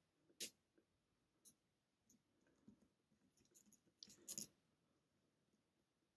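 A few faint clicks of a lock pick working the pin tumblers inside a pin-tumbler lock, likely pins clicking as they are lifted: a single click near the start, a tiny one after a second and a half, and a short cluster of clicks about four seconds in, in near silence.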